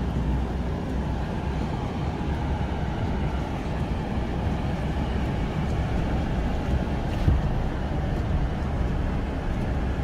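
Ram pickup truck moving slowly through deep snow, heard from inside the cab: a steady low rumble of engine and tyres, with one thump about seven seconds in.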